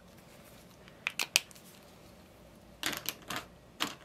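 A few light taps and clicks from an alcohol marker being dabbed on paper and handled. There are three about a second in and a cluster of them near the end.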